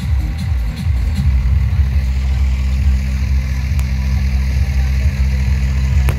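Loud, bass-heavy music from festival loudspeakers. Shifting bass notes in the first second give way to a steady low drone about a second in.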